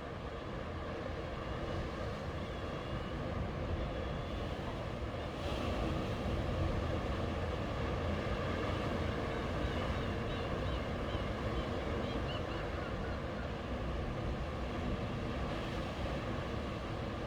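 Sea waves washing onto a beach: a steady rushing surf with a deep rumble, swelling louder about five seconds in as a wave breaks.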